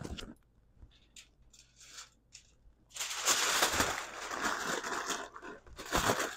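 Aluminium foil being pulled up and crumpled by hand: a few faint rustles, then loud crinkling from about three seconds in for about two seconds, and another short crinkle near the end.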